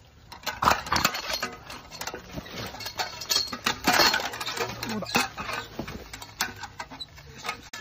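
Young wild boar caught in a wire leg snare struggling and scrabbling in loose soil, with rustling and scuffling and many small metallic clinks and knocks from the snare wire and the capture pole. The louder noisy bursts come about a second in and again around four seconds.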